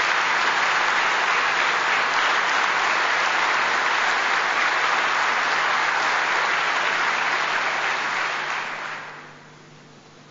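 A large audience giving a standing ovation: dense, steady applause from a full hall that dies away about nine seconds in.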